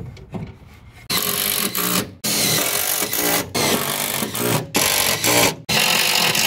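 Cordless drill running in repeated bursts of about a second each, with brief stops between, working a bit into the aluminium frame of a boat's storage-compartment lid. It starts about a second in.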